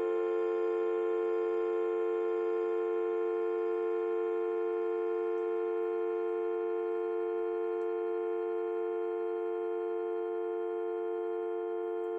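Humming spinning top giving a steady multi-note hum that slowly fades as it spins down.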